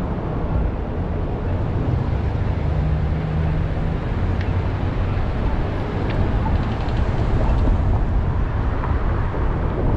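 Steady low engine hum and road noise of a car driving along city streets.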